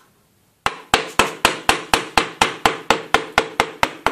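Wooden mallet tapping a wood-handled chisel in quick, light, evenly spaced taps, about four a second, chopping out the waste of a joint in a wooden frame. The taps start about half a second in.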